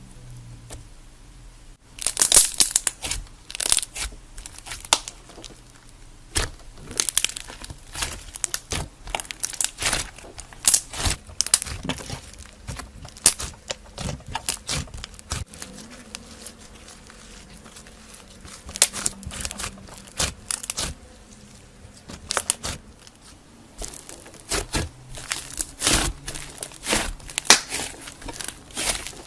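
Slime being squeezed and pressed by hand, making irregular clusters of sharp pops and crackles. The clusters start about two seconds in and come and go with short pauses.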